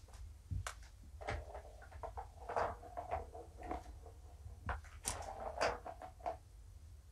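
Light knocks, clicks and rustling from kittens playing and being handled, busiest about a second in and again about five seconds in.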